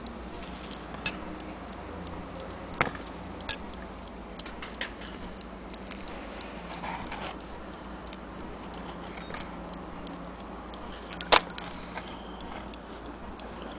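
A vintage Hermle ting-tang mantel clock's brass movement being handled: scattered light metallic clicks and taps at irregular intervals, the sharpest about eleven seconds in.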